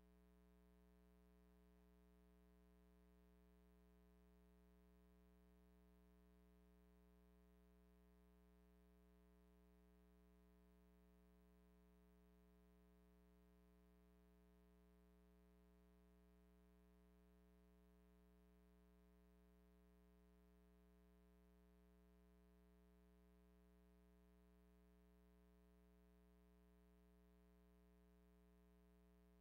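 Near silence: only a very faint steady hum.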